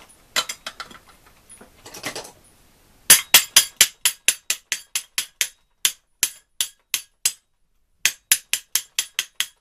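Quick, even hammer taps on the gear of a D-8 moped engine, about four a second, starting about three seconds in and pausing briefly just before the end. Before the tapping there are only a few light clicks of handling.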